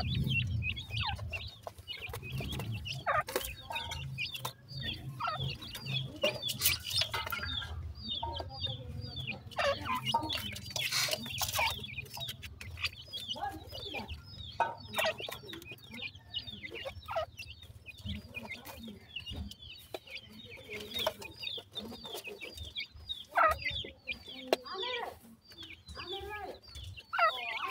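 Young francolin (teetar) chicks calling with many short, high cheeps while they peck and scratch through soil for feed, with scattered dry clicks and scrapes of soil.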